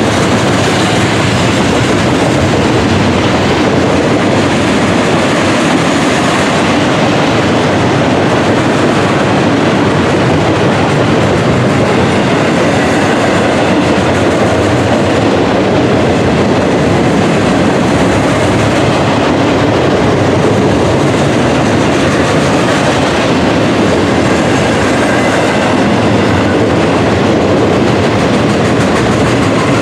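A freight train of double-stacked garbage containers on well cars rolling past at steady speed: a loud, even noise of steel wheels running on the rails.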